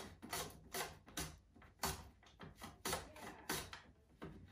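A raw potato pushed by hand back and forth across a handheld mandoline (banjo slicer) blade, slicing it onto a wooden cutting board in quick repeated strokes, roughly two to three a second.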